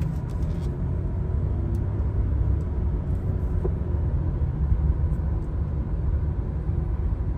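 A 2002 Chevrolet Impala LS with the 3.8-litre 3800 V6 driving, heard from inside the cabin: a steady low rumble of engine and road noise.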